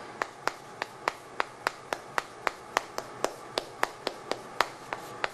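Chalk tapping against a blackboard with each stroke of handwriting: a steady run of sharp clicks, about three to four a second.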